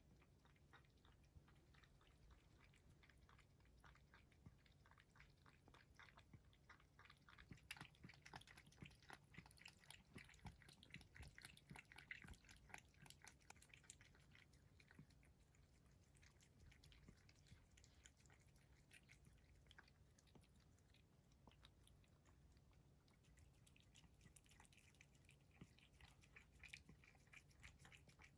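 Faint wet chewing and mouth clicks of a British Shorthair cat eating, a rapid run of small clicks that grows busier in the middle and again near the end.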